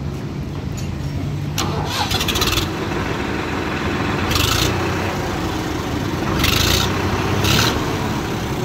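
Swaraj 963 FE tractor's diesel engine starting and running steadily, with several short louder bursts over the rumble. It is starting fine now that the carbon has been cleaned off its starter motor.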